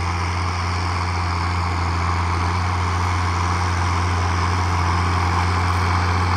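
John Deere tractor's six-cylinder diesel engine running steadily, a deep, even drone that grows slightly louder.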